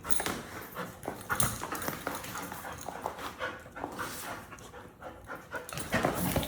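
American bully dog panting and giving dog sounds while it works without let-up, with irregular knocks and scuffs.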